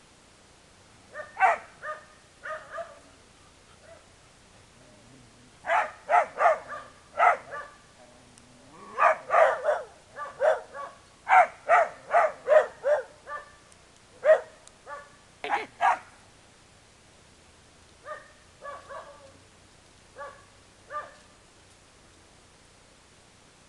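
A dog barking angrily in runs of short, sharp barks with pauses between. The barking is fastest and loudest in the middle and fainter near the end.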